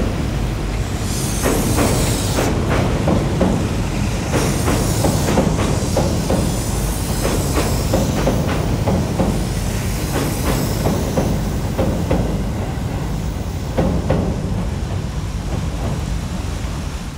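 Tobu 6050 series electric train passing close by across a bridge: a steady rumble of wheels on rail, with groups of sharp clicks as the bogies run over rail joints and patches of high hiss.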